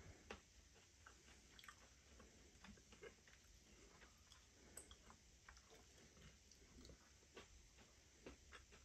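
Faint chewing of a mouthful of panjeeri, with scattered small clicks and mouth noises.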